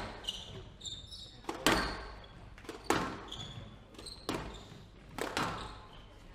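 Squash rally: the ball cracking off rackets and the court walls about every 1.3 seconds, echoing around the hall, with short high squeaks of shoes on the wooden court floor between the shots.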